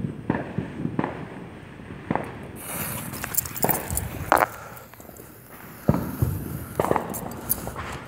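Firecrackers and fireworks going off: a dozen or so sharp bangs at uneven intervals, some in quick clusters, the loudest a little past the middle.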